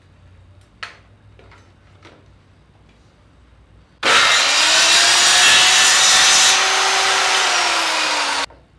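Handheld electric circular saw starting up about four seconds in and running through wood as it cuts the last stretch of a homemade saw guide track, then cutting off suddenly near the end. Before it, quiet handling with one sharp click as the saw is set into the track.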